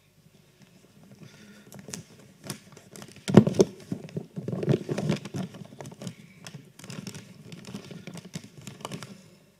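Handling noise from a handheld microphone: irregular knocks, rubbing and rustling as it is moved about with a sheet of paper, with one heavy thump about three and a half seconds in.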